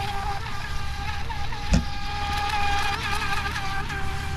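Brushless electric motor of a DEERC 17-inch RC speedboat running at speed, a steady high whine that wavers slightly in pitch over a low rumble. A single short thump comes about two seconds in.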